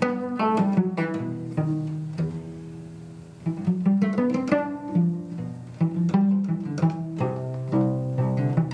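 Solo cello played pizzicato: a run of plucked notes that each sound and die away. Around two seconds in the plucking pauses and the notes ring down, then it picks up again about a second and a half later.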